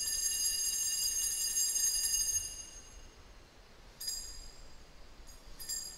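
Altar bells ringing at the elevation of the chalice after the consecration. A continuous shaken ring stops about two and a half seconds in, followed by two short rings, one about four seconds in and one near the end.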